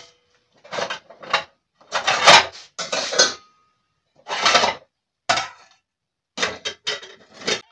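Metal pots, pans and dishes clattering as they are handled and set down, in a string of about ten short bursts with brief pauses between, one leaving a short ring.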